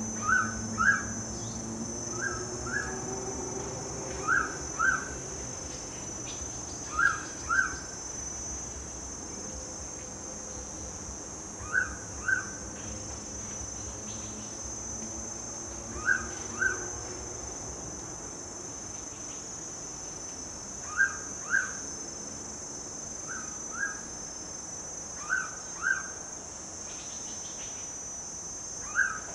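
Mangrove pitta calling: a loud two-note whistle, repeated about ten times at gaps of two to five seconds, over a steady high drone of insects.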